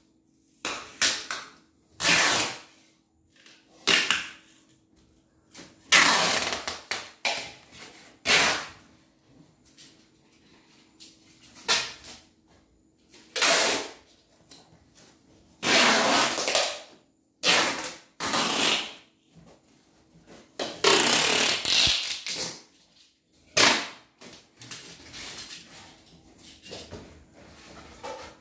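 Packing tape being pulled off the roll in a series of quick ripping strips, about fifteen over the stretch, some short and some drawn out over a second or more, while a box is taped shut.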